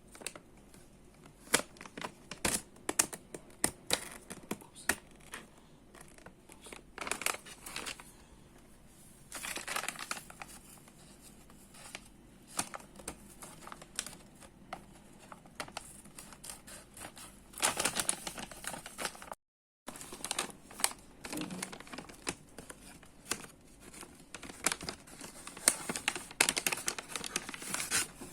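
Packaging crinkling, rustling and tearing as it is handled and opened by hand, in irregular bursts with sharp clicks. The sound cuts out completely for a moment about two-thirds of the way through.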